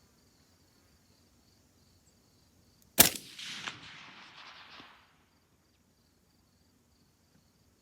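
A single shot from a suppressed 16-inch .223 rifle about three seconds in, its report echoing and fading over about two seconds. Crickets chirp faintly throughout.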